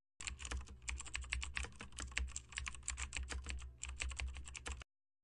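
Rapid typing on a computer keyboard: a quick, uneven run of key clicks that stops abruptly about four and a half seconds in.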